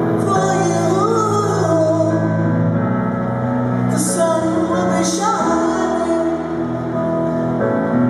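A woman singing a slow ballad over grand piano chords, heard live through an arena's sound system.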